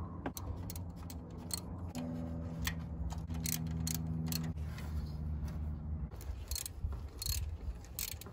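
Hand ratchet clicking in short, uneven strokes as it tightens the new water pump's bolts down onto the gasket. A steady low hum runs for a couple of seconds in the middle.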